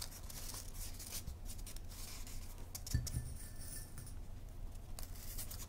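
Faint scratchy handling of a foam disc with a paper ruler strip around its edge, as pins are pressed into the foam, with one soft low thump about three seconds in.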